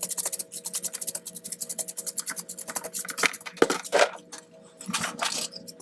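A small bristle brush scrubbing in quick back-and-forth strokes, about eight to ten scratchy strokes a second, sweeping loose broken glass off a phone frame. The strokes then turn slower and more irregular, with a few louder scrapes in the second half.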